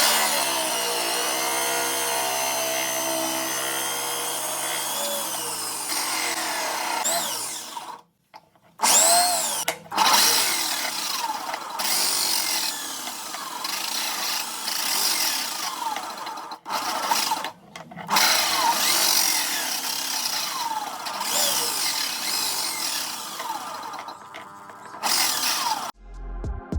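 A small electric power tool running. Its motor pitch dips at first and then holds steady for several seconds. Then come a few short segments where the pitch slides up and down as it works, broken by abrupt cuts.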